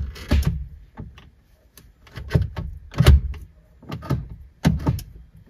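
Gear selector linkage of a Citroen C-Zero electric car clicking crisply into each position as the selector is moved through the gears, about seven clunks in irregular succession. The rusted shift rod is freshly cleaned and greased and the gear position sensor adjusted, so each position now engages with a loud, distinct click.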